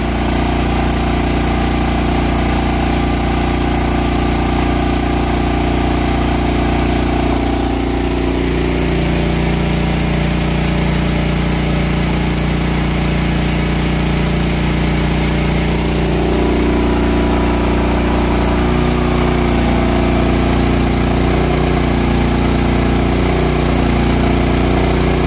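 Kohler engine of a portable generator running steadily under electrical load, the meters reading about 60 Hz and 221 V. Its tone shifts slightly about eight seconds in and settles back around sixteen seconds in.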